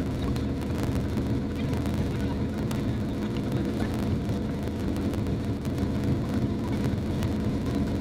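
Motorboat engine running steadily at planing speed, a constant drone under the rush of wind and water as the boat runs fast over open sea.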